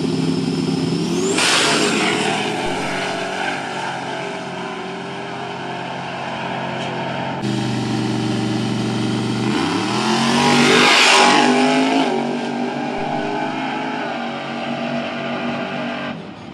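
Race car engines accelerating hard, the engine note sweeping up in pitch, with two loud passes: one about a second and a half in and a longer, louder one around ten to twelve seconds in.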